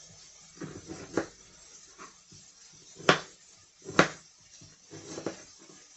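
Kitchen knife chopping an onion on a wooden cutting board: about eight uneven knocks of the blade on the board, the two loudest about three and four seconds in.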